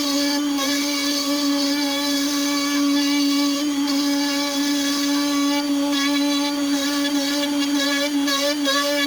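Small high-speed electric power tool, such as a handheld rotary tool, running steadily with a constant high whine while working into the wood of the clock slice to deepen the recess for the movement.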